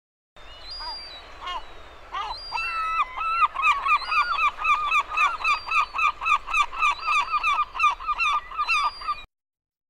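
Gulls calling: a few separate cries, then a long run of rapid repeated yelping calls, about four or five a second, that cuts off suddenly near the end.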